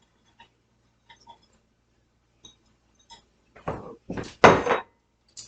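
Light clicks and taps of kitchen utensils and dishes being handled, then three louder noisy knocks about three and a half seconds in.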